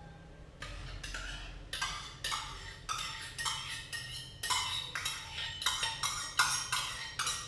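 Metal spoon scraping thick curd (yogurt) out of a steel cup into a glass bowl: a quick run of short scrapes and clinks, two to three a second, starting about half a second in.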